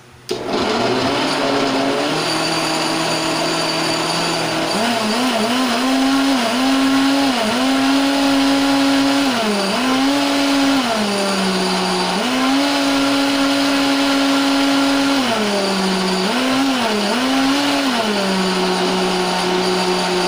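Countertop blender motor switching on and running at high speed, puréeing cooked squash, milk and broth into a smooth soup. Its pitch steps up and dips back several times as it runs.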